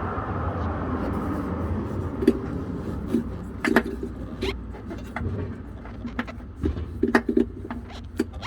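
Scattered short clicks and plastic knocks of a small clip being handled and fiddled with by hand under the car, over a steady low outdoor rumble. A rushing sound like a passing vehicle swells and fades in the first couple of seconds.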